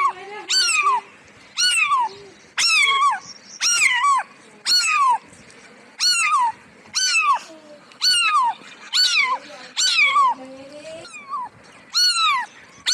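Cat meowing over and over, about one high meow a second, each a short call that falls in pitch.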